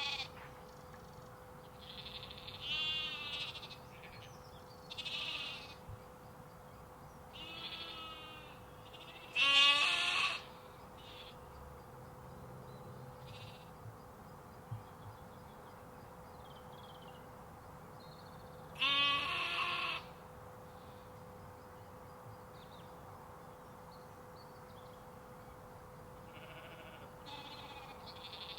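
Sheep and lambs bleating now and then: several separate wavering bleats, the loudest about ten seconds in and again near twenty seconds, with long quiet gaps between. A faint steady hum runs underneath.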